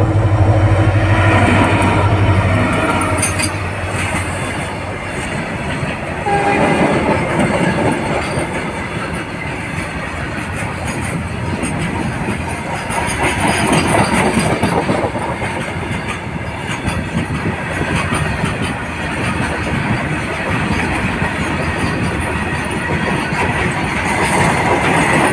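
Freight train passing close by: the locomotive's low steady rumble, a brief horn note about six seconds in, then a long run of flat wagons rolling past with wheels clattering on the rails.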